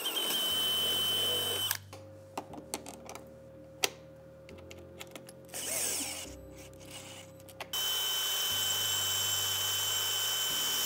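Cordless drill boring through a metal bracket with a quarter-inch bit, in two runs with a steady high whine: one about two seconds long at the start, and a longer one from a little before the eight-second mark onward. Between them there are quieter clicks and a short burst of noise.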